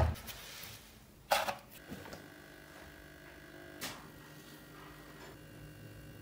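An old battery charger's toggle switch clicks, with a second sharp click about a second in, then the charger hums steadily as it powers the electrolysis bath that strips rust from the cleaver.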